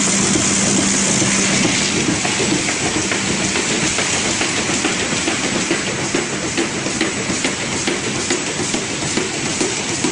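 High-speed folder-gluer box machine running, its belts and rollers giving a steady whirr and hiss. About two seconds in, a steady hum drops away and a dense rapid clatter of small clicks comes in as corrugated blanks feed through.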